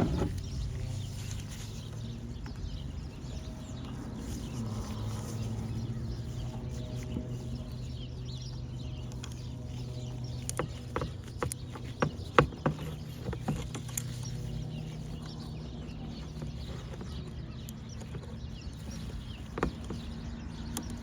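Scattered clicks and knocks of hands and tools refitting a fuel line on a portable generator, over a steady low hum.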